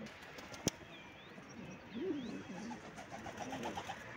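Domestic pigeon cooing: a low, warbling coo that rises and falls, starting about two seconds in and running into a quick pulsed stretch. A single sharp click comes about a second in.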